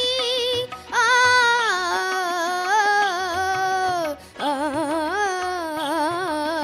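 A boy singing solo into a handheld microphone, holding long notes with wavering ornaments in an Indian classical style, with two short breaks for breath. A soft, low rhythmic pulse runs beneath the voice.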